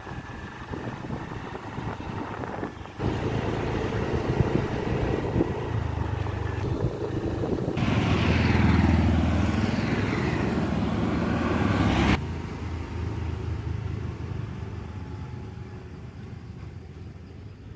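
Engine and wind noise from a motorbike being ridden, broken by edit cuts; about eight seconds in, a scooter passes close by, its engine note falling as it goes, until the sound cuts off abruptly about twelve seconds in. After that, quieter road sound with a motorbike approaching from afar.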